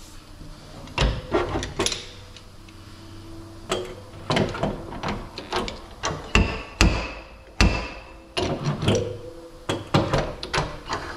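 Slide hammer dent puller clanking again and again as it is jerked against pins welded to the steel door skin, pulling a dent out of a pickup's front door. The knocks are irregular, some with a short metallic ring, and come faster in the second half.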